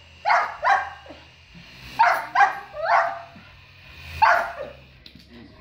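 Small dog barking at a toy helicopter in short sharp barks: two, then three, then a single bark.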